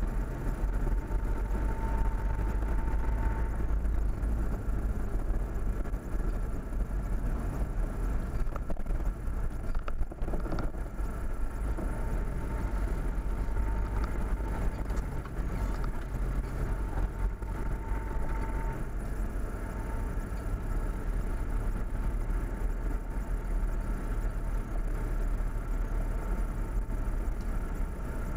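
Steady low rumble of a vehicle's engine and tyres driving slowly on a gravel track, heard from on board, with a faint whine coming and going.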